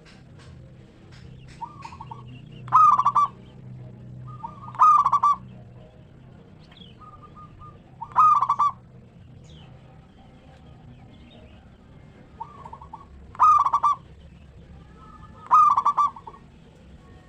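Zebra doves (local perkutut) cooing: five loud, rapidly pulsed coo phrases a few seconds apart, with quieter coos between them.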